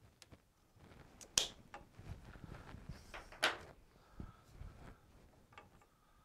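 Two sharp snaps about two seconds apart, with rustling handling noise between them, as a hand tubing cutter clips through plastic compressed-air tubing.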